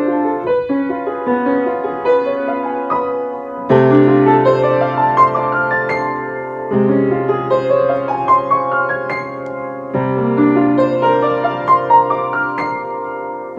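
Solo piano playing a slow, gentle piece: a melody over sustained chords, with a low bass note struck afresh about every three to four seconds as each phrase begins.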